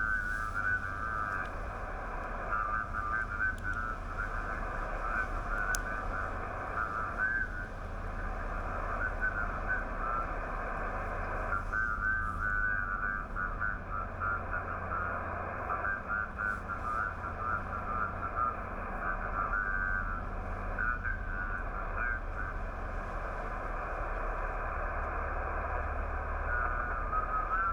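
Receiver audio from a Yaesu FT-891 HF transceiver: steady band hiss with clusters of short beeping tones from signals on the band that come and go.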